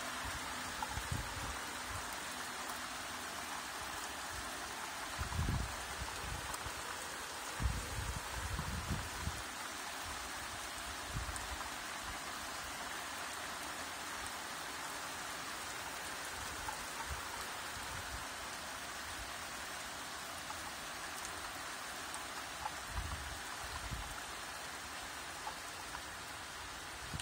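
Steady rain falling, an even hiss, with a few short low thuds now and then.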